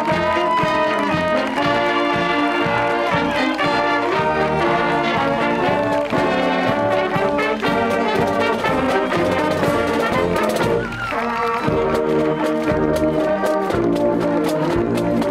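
High school marching band playing live: trombones, trumpets and saxophones carry the tune over sousaphones and a drumline. The band dips briefly about eleven seconds in, then comes back with sharper drum hits.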